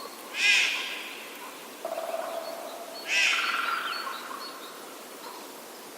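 Crow cawing: two harsh caws about three seconds apart, with faint small-bird chirps behind them.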